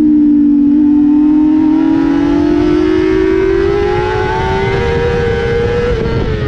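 Honda CBR600 inline-four engine at high revs under hard acceleration, its note climbing steadily in pitch for about five seconds, then dropping near the end, with wind noise underneath.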